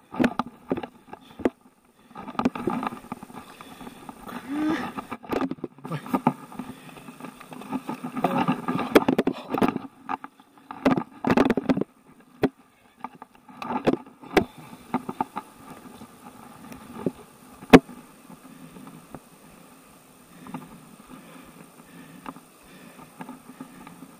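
Water splashing in irregular bursts as a hooked carp thrashes at the surface and is drawn toward a landing net, mixed with knocks and rustles of handling the pole and net. It goes quieter in the second half, apart from one sharp click.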